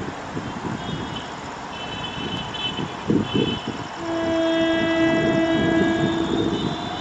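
Electric locomotive approaching with a low rumble. About four seconds in its horn sounds one long steady blast of about two and a half seconds. A brief loud knock comes just before the horn.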